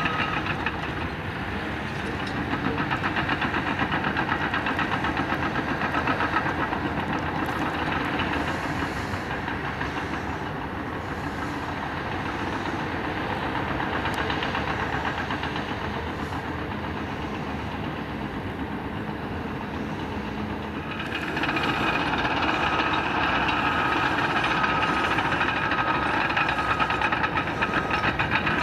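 Caterpillar D5K2 LGP crawler dozer working dirt: its diesel engine running under load with the clatter of its steel tracks. It gets louder about three-quarters of the way through, and a steady high whine joins the engine there.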